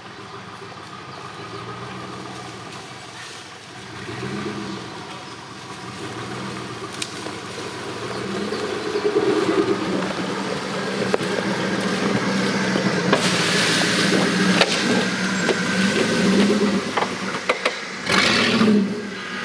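Off-road buggy's engine revving up and down in short pulls as it crawls over rough ground, growing louder as it comes close. Scattered knocks from the chassis and tyres on the trail, with a loud rush of tyre and dirt noise near the end.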